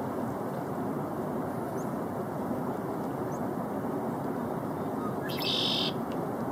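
Black-capped chickadee calls: a couple of faint, short high chirps, then a brief, louder high-pitched burst of calling about five seconds in, over steady outdoor background noise.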